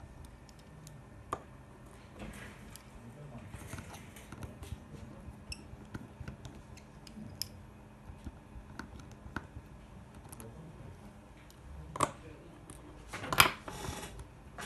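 Small, sharp clicks and light taps of repair tools working inside an opened iPhone 6, freeing the home button's flex cable. They are scattered and irregular, with two louder clicks near the end.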